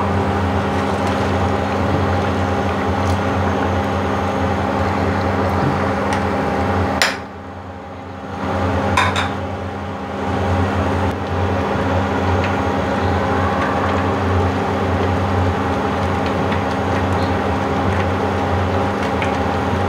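Saucepan of cabbage and minced-pork soup simmering on a portable induction cooker, its steady electric hum under the noise of the bubbling water. The sound drops away about seven seconds in and comes back a couple of seconds later.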